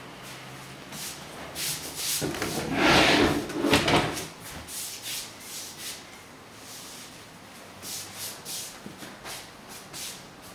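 A rubbing, sliding sound, loudest for about two seconds early on, among scattered light taps and clicks of handling and footsteps.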